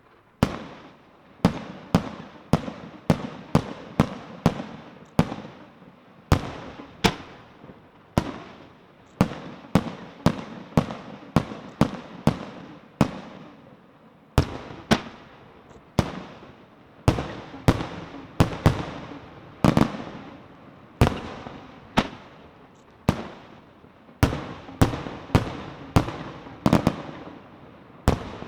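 Aerial firework shells bursting in a rapid series of loud bangs, one or two a second, each bang trailing off in echo.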